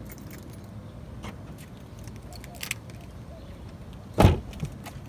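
Ford Mustang car door shut with one loud thump about four seconds in, with a smaller knock just after it. Light clicking and rustling come before it.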